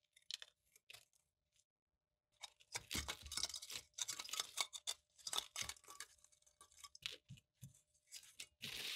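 Corroded sheet-steel lantern parts being handled and worked apart by hand: scraping, rubbing and light clinking of rusty metal, with crunching of loose rust flakes. A few small clicks at first, then a dense, uneven stretch of scraping from about two and a half seconds in, ending in a thicker scrape.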